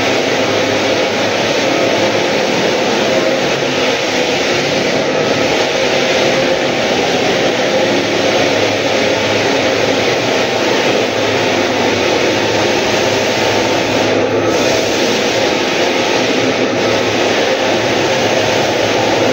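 Drum floor sander running steadily as it is pushed over a wooden floor: a continuous loud machine drone from its motor, drive belts and sanding drum grinding the wood.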